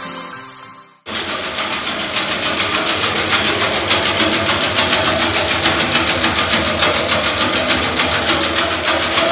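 Music fading out, then about a second in a sudden cut to loud, steady machinery noise with a fast, even rhythm, like a machine running in a distillery workroom.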